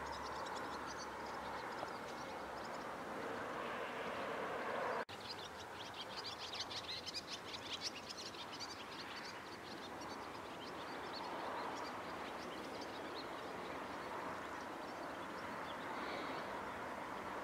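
Outdoor ambience: a steady rushing background with birds chirping, busiest in a quick run of high chirps from about five seconds in, just after a brief break in the sound.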